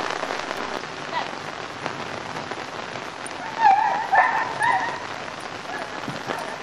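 Steady hiss of falling rain, with a few short high-pitched cries a little past halfway through.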